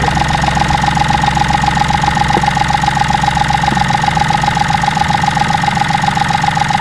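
Fuel injector on a running three-cylinder car engine, heard through a mechanic's stethoscope. It gives a rapid, continuous ticking over a steady ringing tone. The unbroken ticking shows that the injector's needle is moving and the injector is working.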